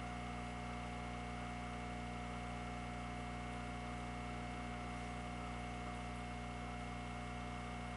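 Room tone made up of a steady electrical hum and an even hiss, unchanging throughout, with no other distinct sound.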